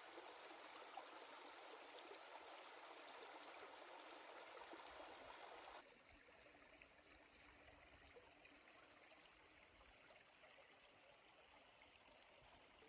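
Faint, steady rush of a small creek flowing. About six seconds in it drops suddenly to a quieter level.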